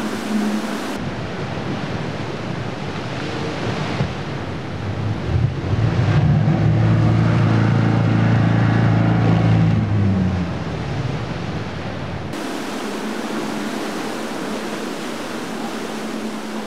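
Motorboat engines running, with water rushing and splashing in the boat wakes. A low engine drone swells in the middle and fades out a little after ten seconds in.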